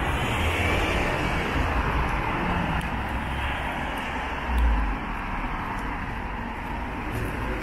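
Street traffic on a wet road: a car passes with its tyres hissing on the wet asphalt, loudest in the first few seconds and then easing off. A brief low rumble comes about four and a half seconds in.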